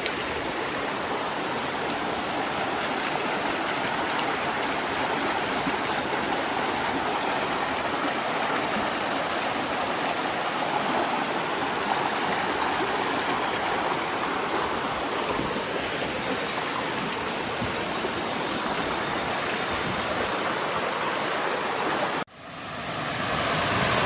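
Creek water rushing steadily, a continuous even wash of flowing water. Near the end it cuts out for a moment and comes back louder.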